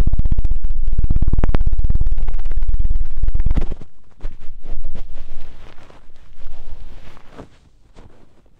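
Hands beating rapidly and steadily against the foam-covered ears of a binaural microphone: the 'helicopter' ASMR trigger, a loud, fast, even thumping. It stops about three and a half seconds in, giving way to softer scattered rubbing and tapping on the microphone.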